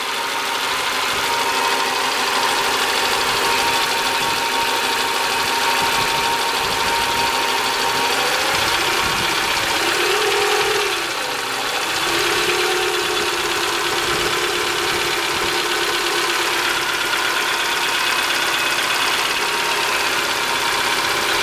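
Honda F20Z1 engine running with a knock from the cylinder head. Its note briefly dips and changes about halfway through, then settles again.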